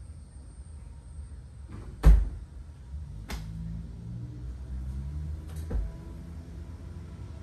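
Three sharp knocks, the first and loudest about two seconds in, the next about a second later and the last near the end, over a low steady rumble.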